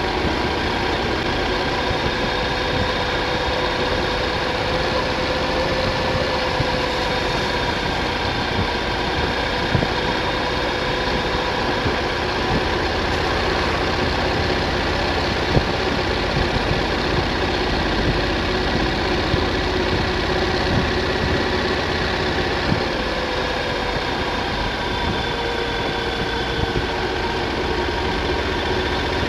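Triumph Thunderbird motorcycle engine running at a steady cruise, its pitch drifting slightly with road speed, over a steady rush of wind and tyre noise on wet tarmac.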